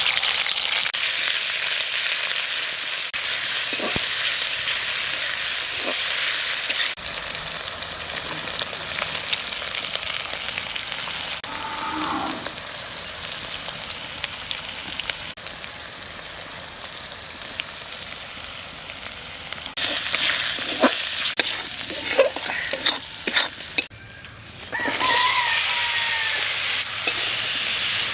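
Food sizzling and frying in hot oil in a pan, with a steady hiss. Stirring gives scattered clinks of the utensil against the pan, mostly a little past the middle. The sizzle briefly drops away near the end, then comes back.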